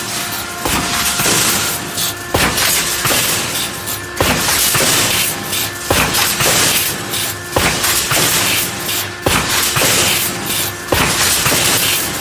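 Pneumatic reinforcing-steel mesh welding machine running through its weld cycle: a heavy clunk a little under every two seconds, each followed by a hiss of air, over a steady hum.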